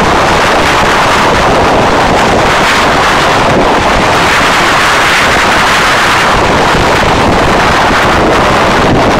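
Loud, steady wind rushing over the microphone of a camera on a motorcycle moving at highway speed.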